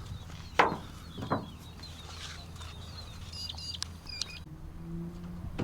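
Two sharp knocks about a second apart, then a few short, faint bird chirps over a steady low hum.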